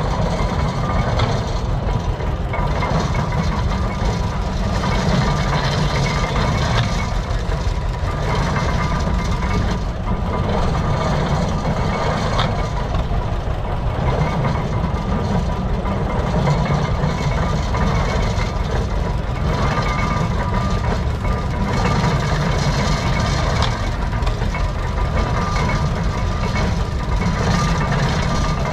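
Antique belt-driven stationary hay baler running while being fed hay, together with its drive engine working steadily. The sound is a dense, even mechanical rumble with a faint steady whine.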